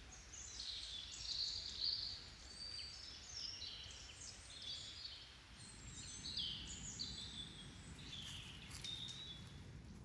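Small songbirds singing faintly: a string of short high chirping phrases, one after another, over a low steady background hiss.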